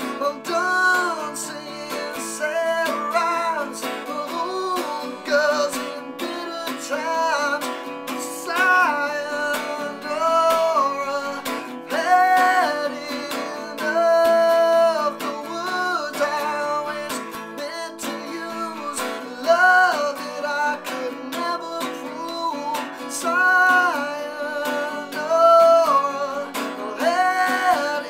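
A man singing over a strummed acoustic guitar, holding long notes in a song.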